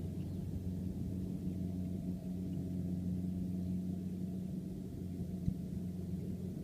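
Steady low engine drone of a combine harvester working a rice field, an even hum with no change in pitch, and a single short click about five and a half seconds in.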